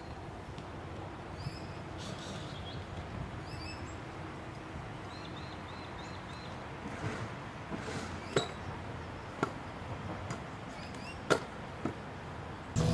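Stunt scooter rolling on skatepark concrete, with a few sharp knocks of the wheels and deck hitting the ground and ledges in the second half, the loudest about eleven seconds in. A steady low rumble lies underneath, with a few faint bird chirps in the first half.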